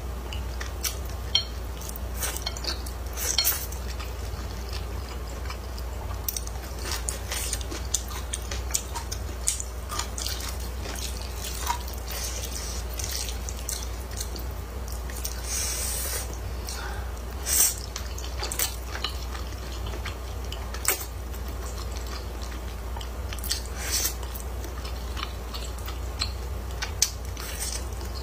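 Close-up eating sounds of thick noodles: wet slurps, lip smacks and chewing, with many scattered sharp clicks, some from wooden chopsticks against the plate. The loudest smacks come about three and a half seconds in and again past the middle.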